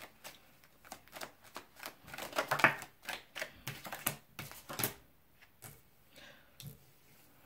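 A deck of tarot cards being shuffled by hand: a rapid run of card clicks and slaps, densest and loudest about two to three seconds in, thinning to a few scattered clicks after about five seconds.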